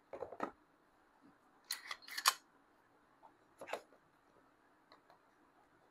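A few sharp mechanical clicks and clacks from a Canik SFX Rival S pistol and a digital trigger pull gauge as the trigger is pulled for a pull-weight measurement and the gauge is handled, the loudest pair about two seconds in and fainter ticks near the end.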